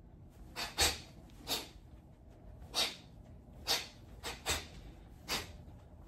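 Sharp, hissing exhales forced out with each shadowboxed elbow strike, about eight short bursts in quick, uneven succession.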